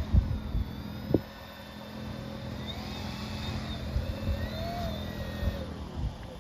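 Twin electric motors and propellers of an RC Twin Otter floatplane whining, their pitch rising and falling as the throttle is worked in reverse to back the plane up on the water. There is a low wind rumble under it and a sharp knock about a second in.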